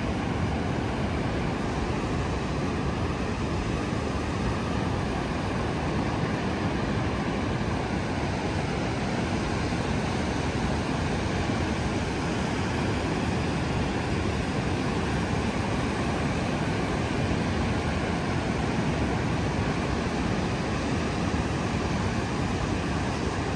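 Steady roar of breaking ocean surf, even and unbroken.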